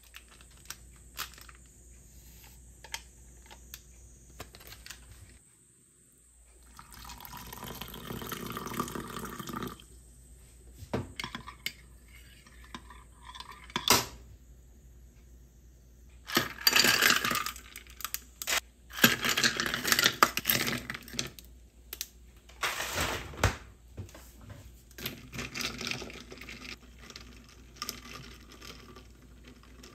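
Tap water running at a sink in several short spells, mixed with clinks and knocks of small hard objects being handled and set down.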